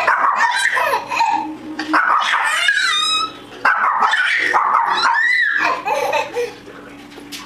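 A small dog barking and a baby laughing together in lively bursts, dying down about six seconds in.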